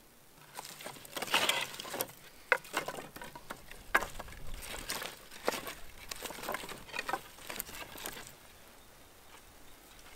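Sticks of dry firewood clattering and knocking against each other as they are picked up off the sand and gathered into an armful, with a few sharp wooden knocks. It goes quieter about 8 seconds in.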